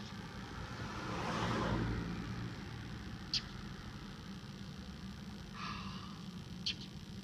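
A car passing by, its noise swelling and fading about one to two and a half seconds in. Three short, sharp, high chirps (at the start, about three and a half seconds in, and near the end) fit the bird that is harassing the cat.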